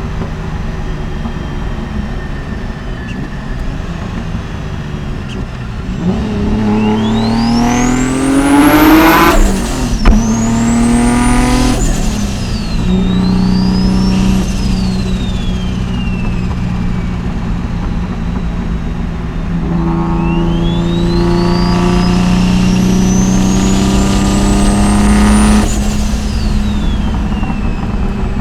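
Mitsubishi 3000GT VR4's big-turbo 3.0 L V6 under hard acceleration, its pitch and a high turbo whistle climbing together. The pull breaks off sharply about ten seconds in, briefly again a couple of seconds later, then runs steadily. A second long pull rises from about twenty seconds in and cuts off near the end, the whistle falling away.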